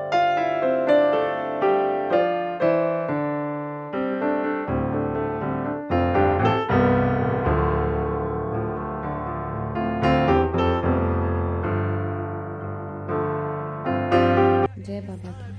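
Piano music, separate notes and chords each struck and left to ring. It breaks off abruptly near the end.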